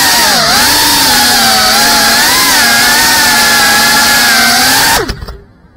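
FPV quadcopter's brushless motors and propellers buzzing loudly and steadily, the pitch wavering slightly with throttle, heard from the camera mounted on the drone. About five seconds in the motors cut and spin down with a quickly falling whine as the drone lands.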